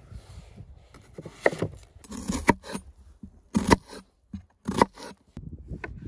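Kitchen knife cutting a peeled onion on a wooden cutting board: several separate cuts, about a second apart.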